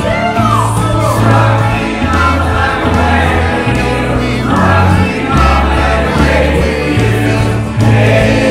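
Karaoke: amplified singing into a microphone over a backing track with a steady, changing bass line.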